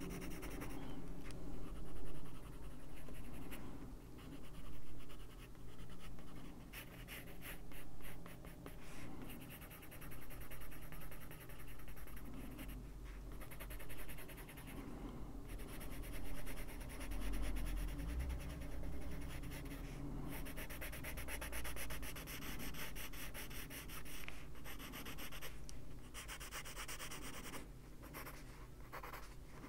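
Faber-Castell Polychromos coloured pencil scratching across a colouring-book page in quick, short shading strokes, with brief pauses between runs.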